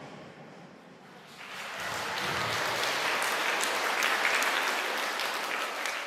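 A choir's last note fades away, then about a second and a half in an audience of schoolchildren starts applauding.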